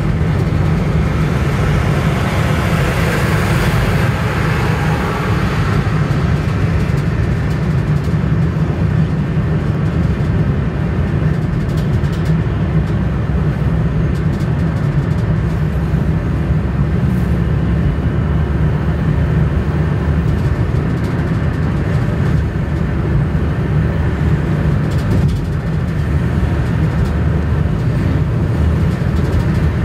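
Steady low rumble of a car travelling at speed, heard from inside the cabin: engine and tyre noise on the road. A louder hiss swells and fades in the first few seconds.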